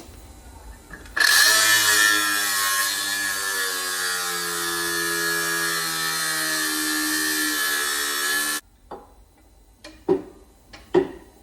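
Handheld power tool running for about seven seconds under load, its pitch sagging slightly, then cutting off suddenly. Two sharp knocks follow near the end.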